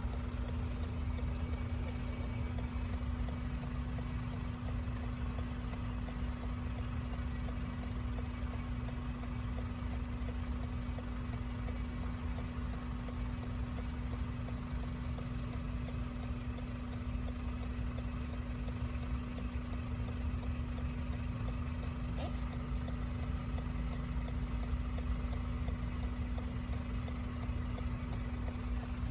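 Steady low rumble with a constant hum, unchanging throughout, like a machine or engine running at idle.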